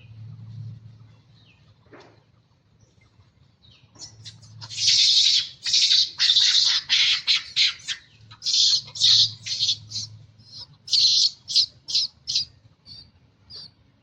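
Monkey giving a long series of shrill, high-pitched screeching calls in quick bursts, starting about four seconds in and tailing off into a few shorter cries near the end.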